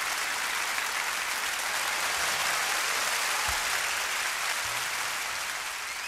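Concert audience applauding after the last song ends, heard through an FM broadcast recorded on cassette tape.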